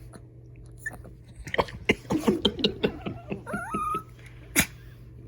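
A dog making a quick run of short, odd yips and whines, the last one a rising, wavering whine, out of impatience for his food. A single sharp click near the end.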